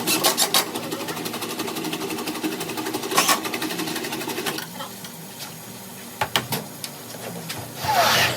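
A small electric motor runs with a fast, even rattle over a steady hum, stopping about four and a half seconds in; a few clicks follow, then a short louder burst near the end.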